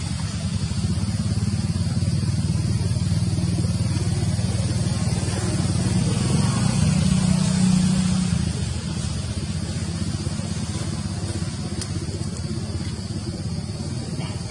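A vehicle engine running with a low, steady hum, growing louder to a peak about seven seconds in and then easing off, over a steady high-pitched hiss.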